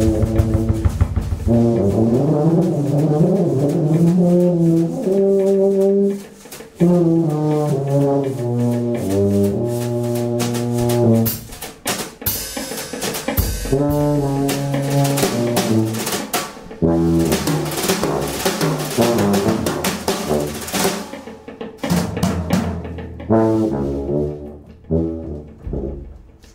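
A small jazz band playing live: tuba and tenor saxophone carry melodic lines over a drum kit. The playing thins out and gets quieter near the end.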